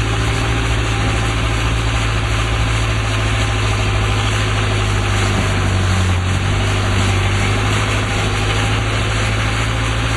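A boat's engine running with a steady low drone while the boat is under way, with a loud rush of wind and water over it.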